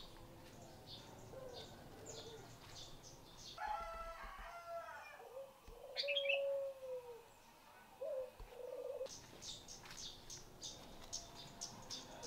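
Birds chirping and calling, with short high chirps throughout and a louder, drawn-out call in the middle.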